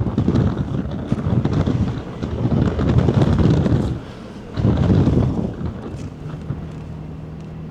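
Wind buffeting the microphone in uneven gusts, with a steady low hum coming in about six seconds in.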